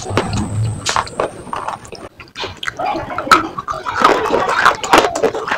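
Pieces of slate being bitten and chewed with a quick, irregular run of sharp crunches and cracks that grows denser and louder in the second half.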